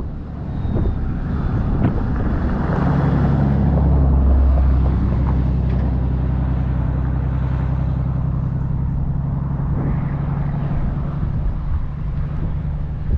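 A boat engine running steadily at a constant pitch, building up over the first few seconds and loudest a little past four seconds in, with wind buffeting the microphone.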